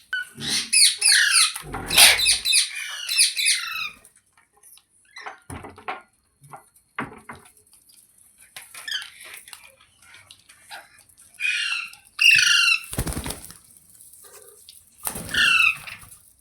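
Green ringneck parrot screeching in rapid runs of sharp, falling calls: a long bout at the start, then two short bouts later on. Between the later bouts there is a short noisy rustle.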